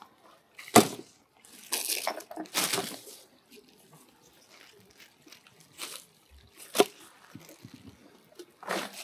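Handling noises from picking up litter: two sharp clicks or knocks about six seconds apart, the second about seven seconds in, among short bursts of rustling.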